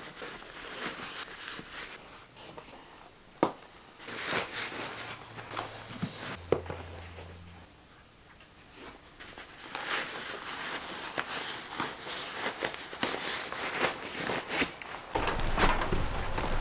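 Rustling, creaking and light knocks of a heavy Haix leather boot being pulled on and its laces drawn through the eyelets and tightened, with one sharper knock about three seconds in. Near the end a steady low rumble comes in with footsteps on paving.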